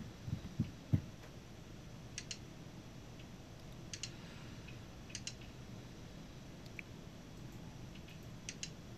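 Computer keyboard keystrokes in the first second as a command is typed and entered. After that come four mouse-button clicks spread through the rest, each a quick sharp double tick.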